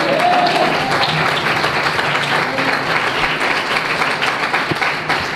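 A congregation applauding, many hands clapping steadily.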